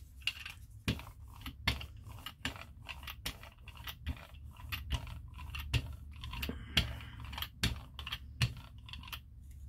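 Hand brayer rolled back and forth over tacky leftover acrylic paint on a paper journal page. It gives an irregular run of clicks and short rasping strokes, about two a second.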